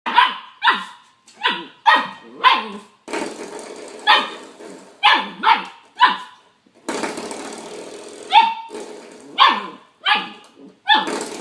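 A dog barking over and over, about fifteen short barks at roughly one or two a second. The background hiss changes suddenly twice.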